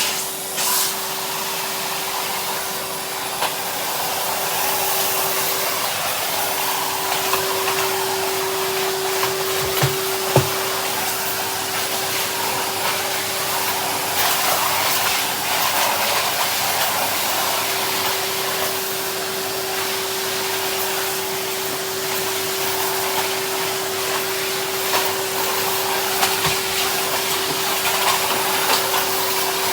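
Henry cylinder vacuum cleaner running steadily: a rush of air with a steady motor hum, and a couple of sharp knocks about ten seconds in.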